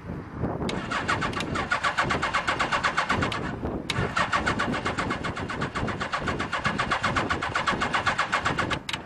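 Suzuki GS850G's air-cooled inline-four engine being cranked on the electric starter from cold with the choke on, in two long runs with a short break a little under four seconds in. It makes an even, rapid chugging that stops suddenly near the end. The engine is struggling to catch because a bad coil pack leaves it firing on only two of its cylinders.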